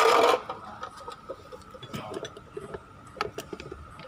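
Scattered light metallic clicks and clinks as a car starter motor and tools are handled, after a short burst of rustling noise right at the start. A faint steady high tone runs underneath.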